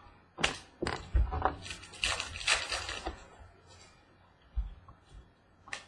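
Trading card pack wrapper being torn open and crinkled, a run of crackling rustles over the first few seconds, followed by a few light clicks as the cards are handled.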